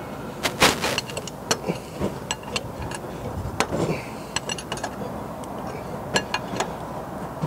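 Steel spanner clinking on the spring starter's mounting bolts as they are given a final tighten: irregular sharp metallic clicks and taps, the loudest about half a second in.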